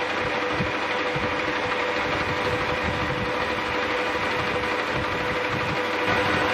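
Old metal-turning lathe running steadily with a constant whine, taking a final skim on a backing plate's register to bring it to size.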